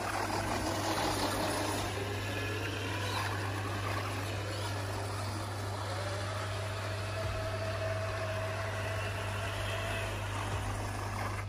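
Traxxas TRX-6 Mercedes G63 6x6 RC crawler driving across a smooth stone floor: its electric motor and geared drivetrain whine, holding a steady pitch through the middle of the run and fading near the end.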